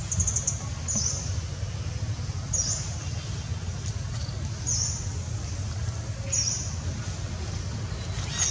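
A bird giving a short, high chirp that falls in pitch, repeated about every two seconds, with a quick run of high ticks near the start. Under it runs a steady low rumble.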